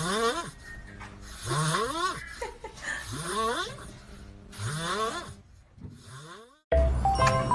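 Kitten making rhythmic rising, throaty growls while eating dry food, one about every second and a half. Near the end it cuts off and background music starts abruptly.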